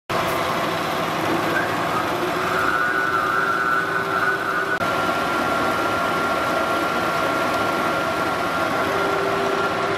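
Lagun FU 1250 tool milling machine running under power: a steady motor and gearbox hum with a thin, steady high whine. The sound cuts out for an instant about five seconds in, and the whine comes back at a slightly different pitch.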